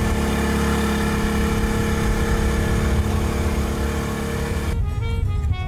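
Outboard motor pushing a wooden dhow, running at a steady buzz. About four and a half seconds in it cuts off and music takes over.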